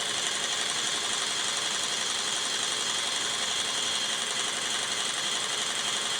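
Battery-powered mini toy washing machine running steadily, its small motor spinning the tub with very little water left inside and shaking the table it stands on.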